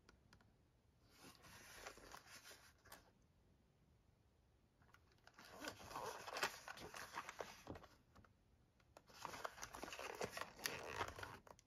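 A small cardboard cartridge box handled in the hands: fingers rubbing, gripping and turning it and working at its end flap, giving three bursts of scratchy cardboard rustling.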